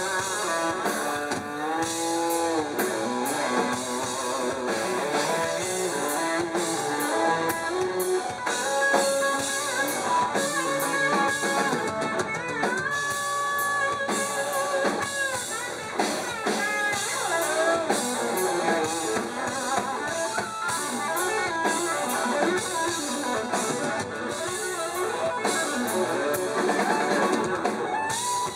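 Live rock band playing: electric guitar, bass and drums, with a melodic lead line that bends and wavers in pitch over the band.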